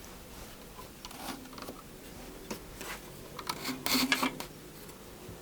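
Light workshop handling noises: a few scattered knocks and rubs, then a louder cluster of clatter about four seconds in, as a board and the saw's fittings are handled. No saw is heard cutting.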